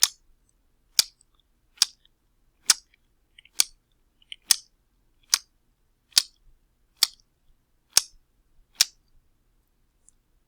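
A series of sharp wet slaps, about one a second, eleven in all, stopping about nine seconds in.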